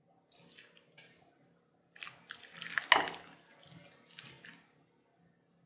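Metal spoon stirring potato salad in a glass bowl: wet, squishy scraping and folding in irregular strokes, with one sharp tap of the spoon about three seconds in.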